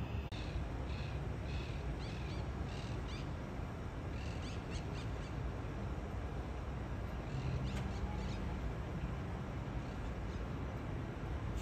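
A flock of birds calling in short, repeated high chirps, several a second for the first few seconds and again briefly about eight seconds in, over a steady low hum of distant city traffic.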